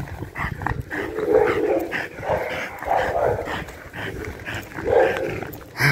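An aggressive dog barking and growling in several loud bursts about a second apart.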